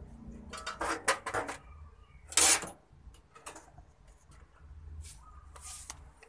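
Handling noises on the open PC case and its cables: scattered clicks and rustles, with one sharp, loud knock about two and a half seconds in.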